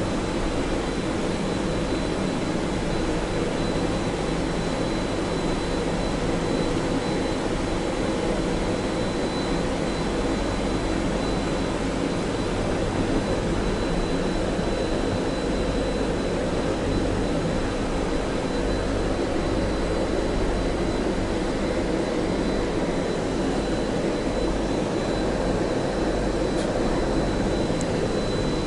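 Gondola lift station machinery running steadily as the cabin moves slowly through the station past the bullwheel, heard from inside the cabin. The noise is an even mechanical hum and rumble with a thin steady high whine.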